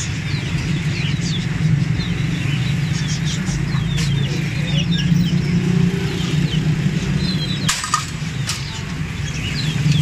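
Young chickens in a wire cage peeping, many short high cheeps, over a steady rumble of street traffic. A few sharp clicks come near the end.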